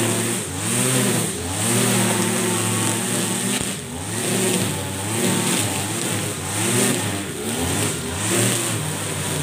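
Husqvarna 542RBS 42cc two-stroke backpack brush cutter running at high throttle. Its pitch dips and recovers about once a second as the 2.4 mm nylon line sweeps through thick, tall grass.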